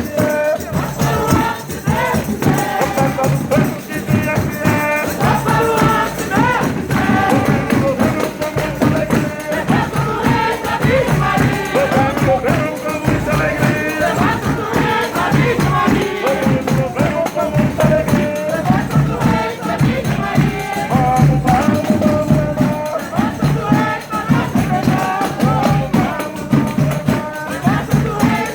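Folia de Reis music: a group of voices singing together over tambourines shaking a steady beat.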